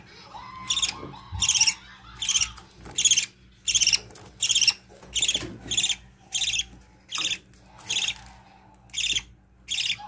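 Budgerigar chicks begging for food as the mother feeds them: a high, raspy cheep repeated steadily about every three-quarters of a second, a dozen or so times.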